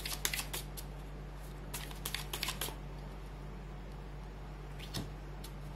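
Tarot cards being shuffled by hand: two runs of quick papery flicks in the first three seconds, then a single soft tap about five seconds in, over a steady low hum.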